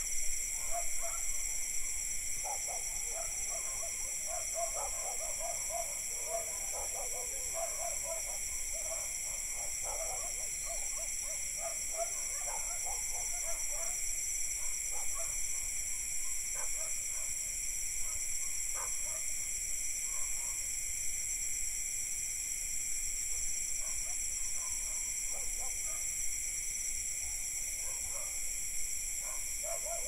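Night insect chorus of crickets and cicadas: a steady, layered high-pitched drone. Over it, distant dogs bark in repeated strings through the first half and again near the end.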